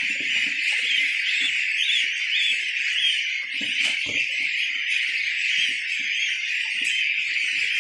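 A dense chorus of many goslings peeping continuously, a steady high-pitched din. A single knock, from a plastic feed bucket being handled, stands out about four seconds in.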